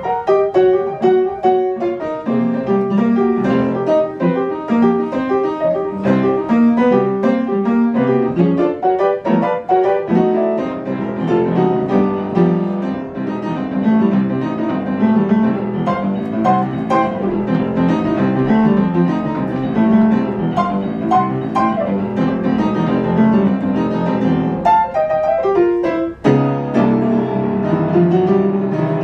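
Solo jazz piano played on an upright acoustic piano: dense chords and quick runs without a break, apart from a brief gap about three seconds before the end, after which the playing resumes.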